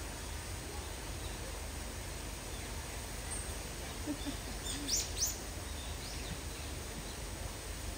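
Steady outdoor background noise with a few short, high bird chirps about five seconds in, the loudest two coming close together.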